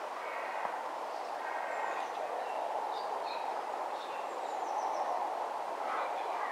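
Steady rushing outdoor background noise, with a few faint short bird chirps scattered through it.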